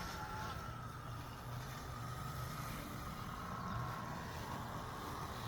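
BESTMOW Titan 100 robotic lawn mower running as it mows: a steady low hum with a faint high whine.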